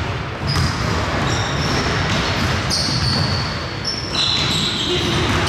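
Basketball being dribbled on a hardwood gym floor, with repeated thumps, while sneakers squeak in short high chirps as players cut and stop.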